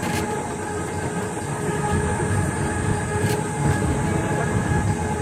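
Roller coaster train rolling along its steel track: a steady rumble of the wheels on the rails, with one sharp click about three seconds in.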